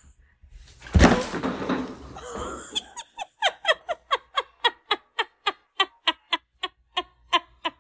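Glassware crashing and shattering about a second in, the loudest sound here. Then a woman laughing hard in a rapid, even run of "ha" bursts, about four a second.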